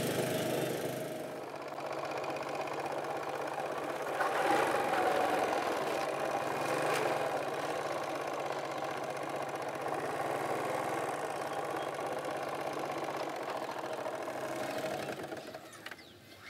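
Small motorbike engine pulling a tuk-tuk passenger trailer, running steadily. It gets briefly louder about four seconds in and fades away near the end.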